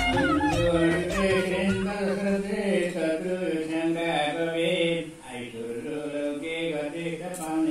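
A man's voice chanting a Sanskrit blessing mantra in a steady sing-song recitation, with a brief pause about five seconds in. This is the elder's blessing recited while tika is applied at Dashain.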